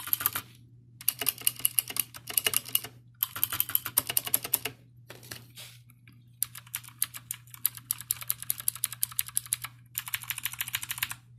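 Mechanical keyboard keys clattering in four quick bursts of rapid presses. The second two bursts sound thinner and lack the lower thump of the first two, matching the lighter sound of the cheap keyboard's switches. A faint low hum runs underneath.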